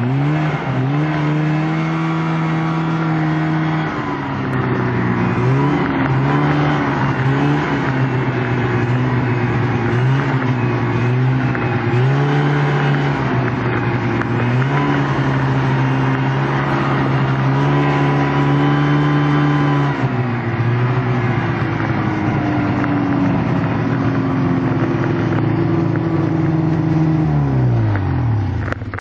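Snowmobile engine heard up close from on board the sled, its pitch rising and falling again and again as the throttle is worked. Shortly before the end the engine slows and its pitch drops away.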